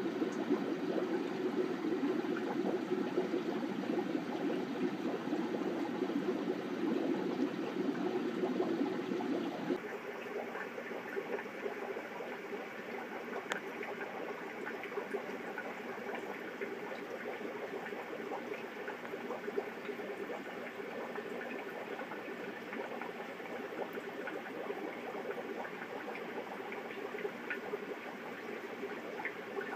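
Air-driven aquarium sponge filters bubbling steadily, air rising through the uplift tubes and breaking at the water surface. About ten seconds in the sound changes abruptly from a deeper, fuller wash to a thinner one with many small pops.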